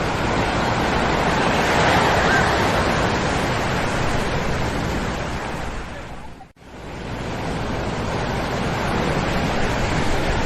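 Ocean surf washing onto a sandy shore, a steady rush of breaking water, with faint children's voices about two seconds in. The sound fades to a brief silence about six and a half seconds in, then swells back.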